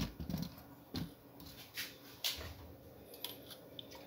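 Handling noise from test leads and clip probes being picked up and moved: a series of irregular knocks and clicks, about six in four seconds, with some rustling between them.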